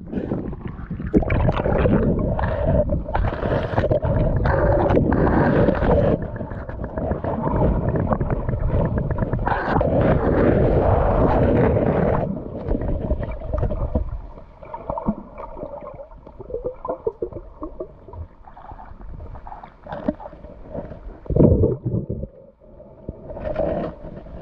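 Shallow seawater sloshing and churning around a submerged camera, heard muffled from under the surface. It is loud and dense for the first half, then quieter with a faint steady hum and a few short splashes near the end.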